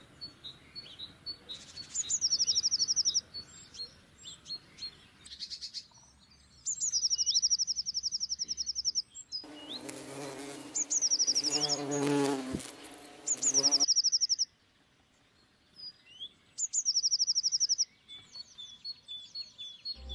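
A songbird repeats a high, rapid trill about five times, with short chirps in between. In the middle a louder buzzing hum runs for about four seconds.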